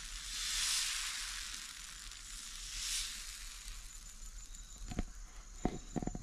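Mung-dal and spinach dosa batter sizzling on a hot iron tava as it is spread with a ladle, the hiss swelling and fading twice. A few light clicks come near the end.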